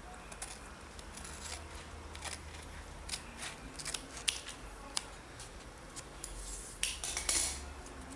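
Scissors cutting paper: a series of short snips and clicks of the blades, scattered, with a longer rustling cut near the end.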